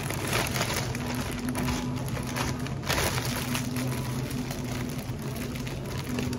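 Clear plastic bag rustling and crinkling as it is pulled over a takeaway box and its top gathered and twisted closed by hand, with a steady low hum underneath.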